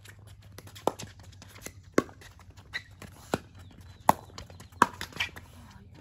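Pickleball rally: sharp pops of paddles striking the hollow plastic ball, about seven hits in six seconds, unevenly spaced, some loud and some softer.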